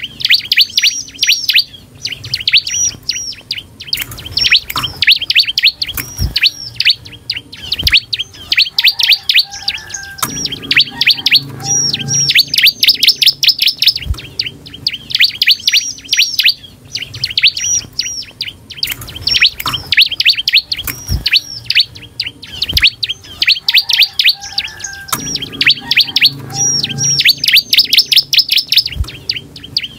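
Bar-winged prinia (ciblek) singing in runs of rapid, high, sharp chirping notes, the runs following one another with short gaps.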